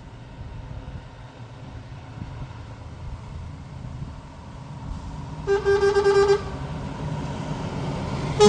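Truck engine rumbling, growing steadily louder; about five and a half seconds in a truck horn sounds one short blast, and another horn blast starts at the very end.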